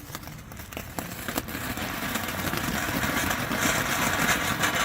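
Mini fountain firework spraying sparks: a hiss scattered with crackling pops that builds steadily louder.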